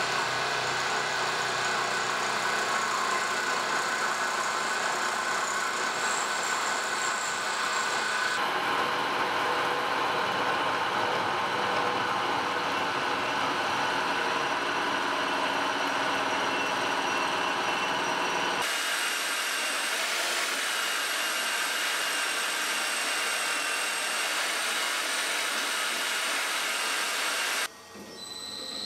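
Milling machine running with an end mill cutting metal: a steady machining noise with a high whine, in pieces that change abruptly about a third and about two thirds of the way through. Near the end it cuts out briefly and a different steady machine sound with a high tone begins.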